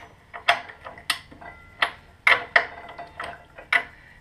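Metal hand tools clinking against the motorcycle's front axle and fork hardware during a front wheel change: about seven sharp, irregularly spaced metallic clicks with a short ring.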